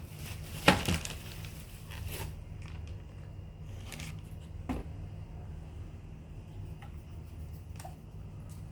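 Unboxed ceiling fan parts and packaging being handled: a sharp knock about a second in, a smaller one near five seconds, and light scrapes and clicks over a steady low hum.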